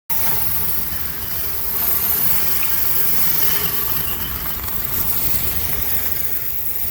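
Commercial 4000 PSI pressure washer running, its engine droning low under a steady hiss of high-pressure water spray.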